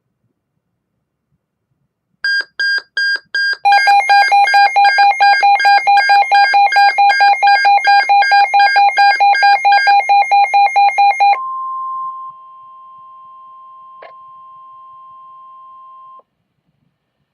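Weather radio alert tones: a few quick beeps, then a loud, fast electronic beeping alarm at about four beeps a second for nearly eight seconds, followed by a steady single tone, the weather radio warning alarm tone, which drops in level about a second after it starts and cuts off after about five seconds. A faint click sounds partway through the steady tone.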